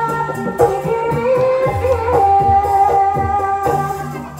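Ebeg dance accompaniment: Javanese gamelan-style music with repeated drum strokes under a held, bending melody line.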